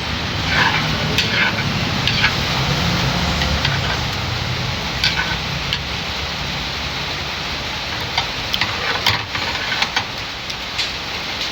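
Steady rain with an engine rumbling for the first few seconds, likely a passing vehicle. Sharp clicks and clinks are scattered throughout.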